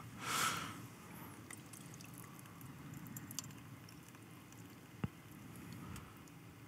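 Tea being poured from a brewing vessel held in a two-handed grip, a short splashing pour in the first second, then faint sound with one small click about five seconds in.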